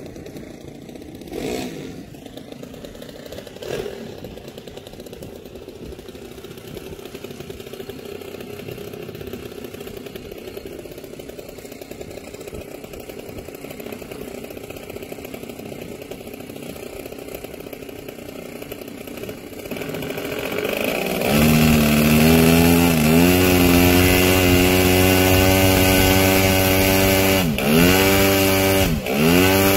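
A large radio-controlled model aeroplane's engine starts up about two-thirds of the way in and runs loudly and steadily, its revs dropping and coming back up three times as the throttle is blipped.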